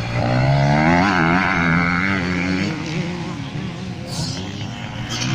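Motocross bike engine revving hard through a corner, its pitch climbing and wavering as the throttle is worked, loudest in the first few seconds. It then falls back, and other race bikes sound farther off.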